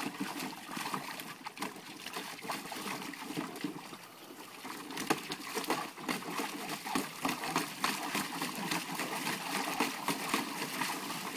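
Great Pyrenees dog splashing about in the water of its pool, a continuous run of irregular splashes.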